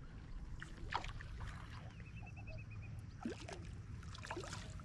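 Small splashes and lapping water at the side of the boat as a small hooked striped bass is drawn to the surface on a fly rod, over a steady low rumble.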